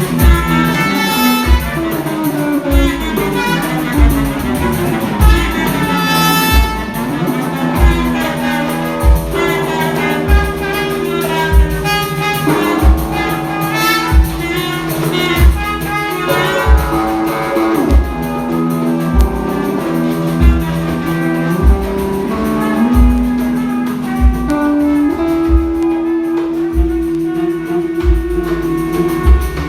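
Instrumental music: a pitched melody line moving over sustained bass notes, with a deep drum beat thumping about once every 1.3 seconds.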